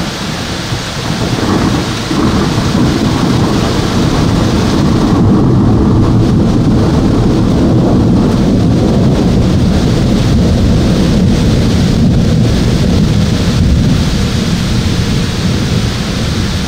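Thunder rumbling in a long, loud roll over steady rain; the rumble builds about two seconds in and holds.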